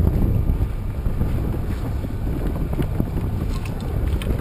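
Wind buffeting the microphone of a sailing yacht under way, over the wash of water along the hull, with a few faint clicks.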